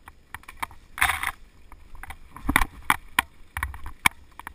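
Mountain bike rattling over a rough dirt trail: irregular sharp clacks and knocks from the bike, over a low rumble, with a brief hiss about a second in.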